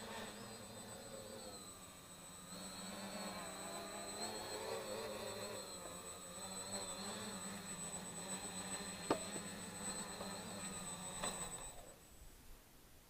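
3D-printed quadcopter's electric motors and propellers buzzing in flight, with a thin high whine; the pitch wavers as the throttle changes. A sharp click comes about nine seconds in, and the motors cut off abruptly near the end as the quad comes down on the snow.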